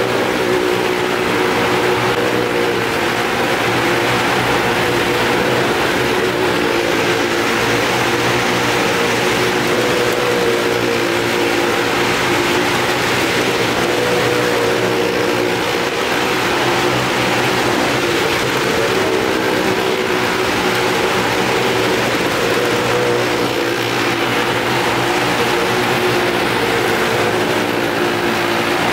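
Engines of small Maruti hatchback cars, with a motorcycle, running hard and revving as they circle the vertical wooden wall of a well-of-death ride. The engine note rises and falls steadily.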